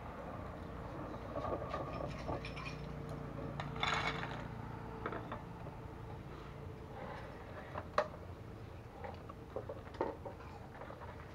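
Scattered clinks and clatter of snail shells and cookware being handled, with a short rustling clatter about four seconds in and sharp single clicks near eight and ten seconds.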